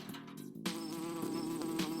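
A steady, insect-like buzz with many overtones, starting about two-thirds of a second in after a brief lull.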